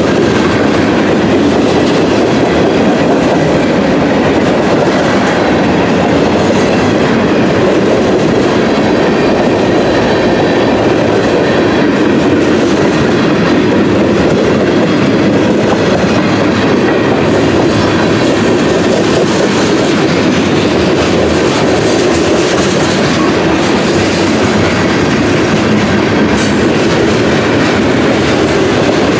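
Covered hoppers and gondolas of a mixed freight train rolling past close by, their steel wheels running loudly and steadily on the rails.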